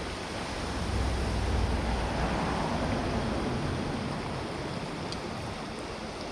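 Steady rush of creek water pouring over a small dam, with a low rumble swelling for a couple of seconds near the start and then easing.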